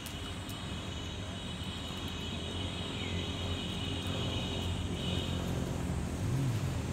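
Outdoor background: a steady low rumble that grows a little louder, with a high steady drone that stops about two-thirds of the way in.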